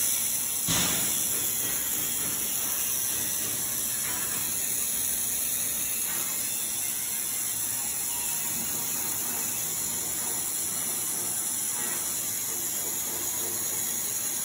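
Handheld laser welder working on stainless steel, a steady hiss with faint spark crackle and a light mechanical clatter from the shop, with a single knock about a second in.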